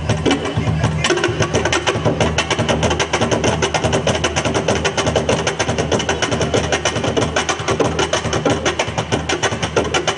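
Live hand percussion playing a fast, dense, unbroken rhythm of sharp wooden strikes for dancing.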